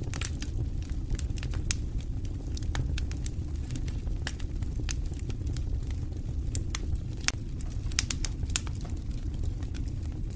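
Fire crackling in a fireplace: irregular sharp crackles over a steady low rumble of the burning, with a few louder pops a little after seven and around eight seconds in.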